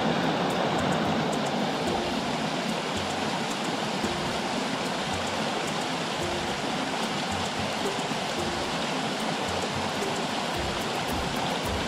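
Water of a woodland stream running steadily over rocks, a continuous rushing and splashing.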